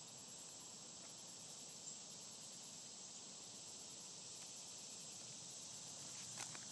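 Near silence with a faint, steady high insect drone. Near the end come a couple of light clicks as the plastic K'Nex toy car is set down on concrete.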